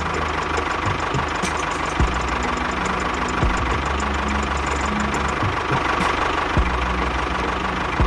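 A machine running steadily like an idling engine, with a few light knocks.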